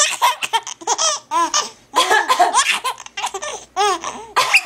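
A three-month-old baby laughing in repeated runs of short, pitched giggles, with brief breaks between the runs.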